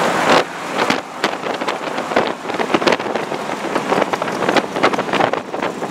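Wind buffeting a microphone on a moving vehicle at road speed, an irregular gusting rush over the road and vehicle noise.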